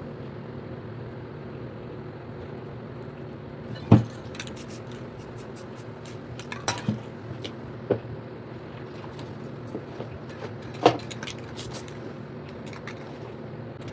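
Steady low hum with a few sharp knocks over it: a loud one about four seconds in, smaller ones around seven and eight seconds, another loud one near eleven, and scattered light clicks.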